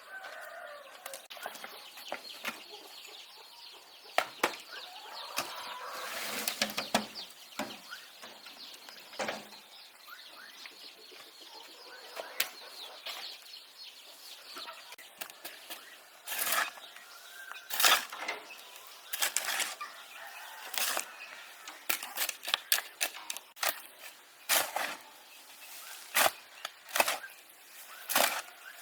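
A hand tool striking repeatedly, about once a second in the second half, over clucking chickens.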